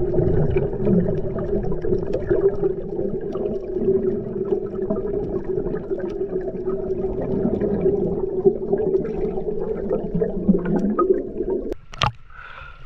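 Sea water heard through a camera held underwater: a muffled steady rumble with a scatter of small clicks and crackles. It breaks off about a second before the end as the camera comes up through the surface, with a sharp splash.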